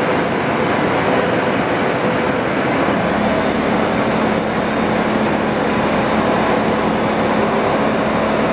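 MGI JetVarnish 3D digital embellishment press running a gold-foil embossing job: a steady mechanical whir and hum, with a lower tone coming in about three seconds in.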